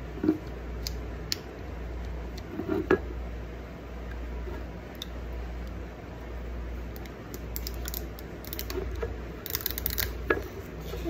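Scattered small plastic clicks and crinkles as the plastic cap and wrapper of a Ramune marble-soda bottle are worked at with teeth and fingers. The clicks come thicker in the last few seconds, over a steady low hum.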